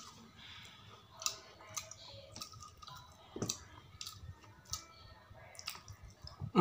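Wet lip smacks and mouth clicks from a man finishing a mouthful of food: short, sharp, irregular clicks, about one or two a second.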